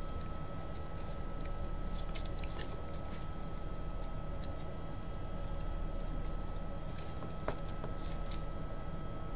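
Faint, scattered light clicks and scratches of small bone pieces and tools being handled during epoxy gluing, over a steady low hum with a thin high whine.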